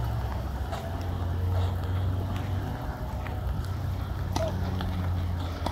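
A steady low rumble of outdoor background noise, with a few sharp pops of tennis balls struck by rackets, the clearest near the end.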